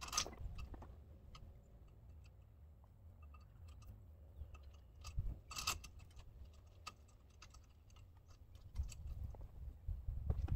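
Scattered faint clicks and metal knocks from hands working the hardware at the back of a loaded dump trailer, with a sharper knock at the start and another about halfway through, over a low steady rumble.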